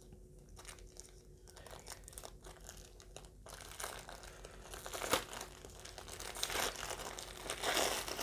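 Plastic Amazon mailer bag rustling as it is handled and opened. It is mostly quiet for the first few seconds, then the rustling starts about three and a half seconds in and grows louder toward the end.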